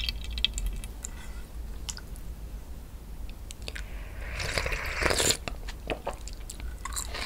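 A spoonful of milky ox-bone (sagol) broth sipped off a spoon, with one noisy slurp about four to five seconds in. Small mouth and spoon clicks come before and after it.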